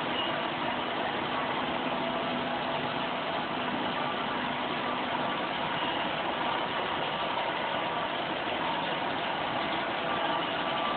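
Plastic granulator (pelletizing extruder) line running: a steady mechanical drone from its motors and screw extruder, with faint steady hum tones.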